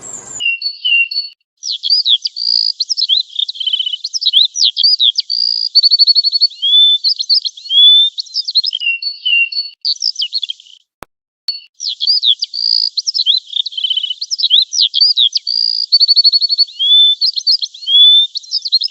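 Songbirds singing a busy run of high whistled notes, quick upslurs and rapid trills. Two short pauses break it. The same stretch of song plays twice, about ten seconds apart, as if looped.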